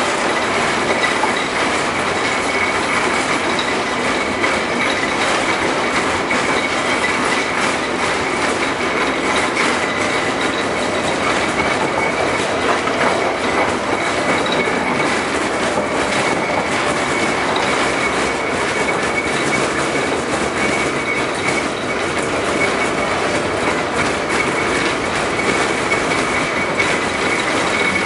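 LM-68M tram running along the track: steady rumble of wheels on rails with scattered clicks and rattles, under a steady high-pitched squeal.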